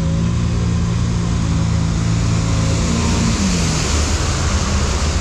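Side-by-side UTV engine running under load as it ploughs through a muddy water hole, its note dropping about three seconds in, with the splash and spray of mud and water growing toward the end.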